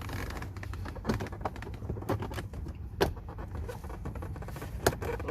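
Plastic interior trim panel being handled and pushed against its clips: scattered light taps, clicks and scrapes, with sharper knocks about three seconds in and near the end.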